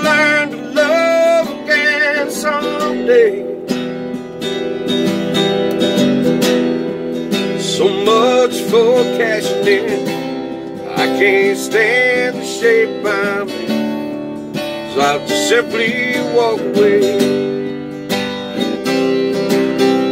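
Acoustic guitar strummed steadily while a man sings long, wavering held notes without clear words; the sung phrases come and go over the guitar.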